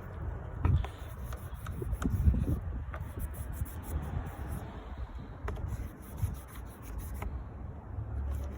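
Alcohol wipe rubbed back and forth over the car's surface, an uneven rustling rub, cleaning it before adhesive-taped parts are stuck on.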